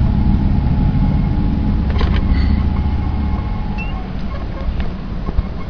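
Steady low rumble of a car heard from inside its cabin, easing a little past the middle, with a brief knock about two seconds in.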